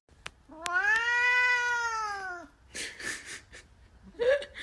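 Siamese cat meowing: one long, drawn-out call of about two seconds that rises and then falls in pitch, then a few short breathy sounds, and the start of another meow near the end.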